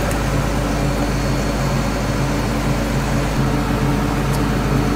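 Fishing boat's engine running at a steady drone, under an even hiss of wind and water.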